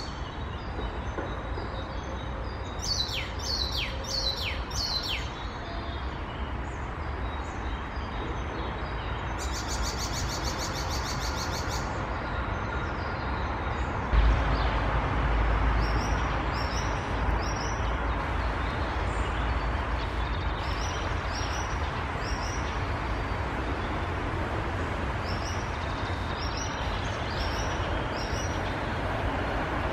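Icterine warbler singing a varied song: a few down-slurred whistles, a rapid buzzy rattle, and later a long run of short, high, repeated notes. Under it runs a steady low rumble of background noise that grows louder about halfway through.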